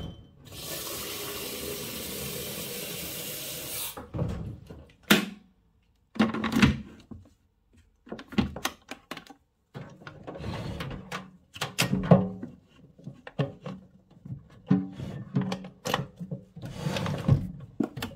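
Kitchen tap running in a steady rush for about three seconds, filling a pot with water. Then a series of knocks and clatter of the pot and kitchenware being handled on the worktop and hotplate.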